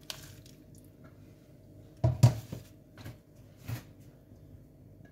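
Kitchen handling sounds: a few dull knocks of utensils and dishes being moved on the worktop, the loudest about two seconds in and two smaller ones after it, over a faint steady hum.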